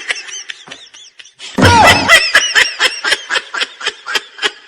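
Bursts of rapid, high-pitched laughter, loud from about a second and a half in and then trailing off.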